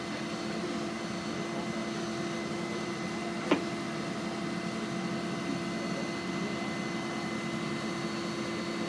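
Excavator engine running steadily, a constant hum with a thin high whine over it; a single sharp knock about three and a half seconds in.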